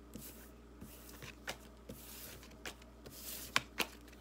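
A deck of tarot cards shuffled by hand: soft swishes of cards sliding together with scattered light clicks, and a couple of sharper snaps near the end.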